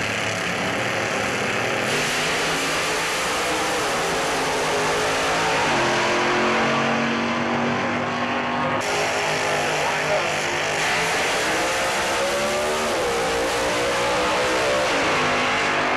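A pair of nitromethane funny cars, supercharged V8s, making a drag-strip run. The engine noise is loud and continuous, with the pitch rising and falling.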